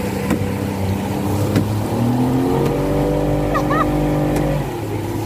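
Engine of the motor boat towing a banana boat, running steadily, then speeding up about two seconds in, holding the higher pitch, and easing back off near the end.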